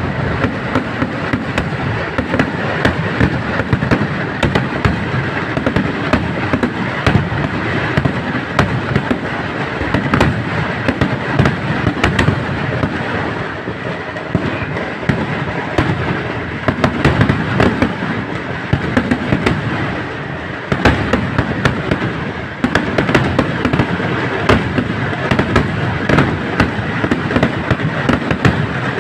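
Fireworks going off in a dense, continuous barrage of rapid bangs and crackling, with louder sharp reports standing out through it.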